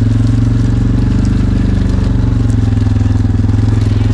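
Engine of a ranch utility vehicle running steadily at low speed: a loud, even drone that holds one pitch, with a fast regular pulse.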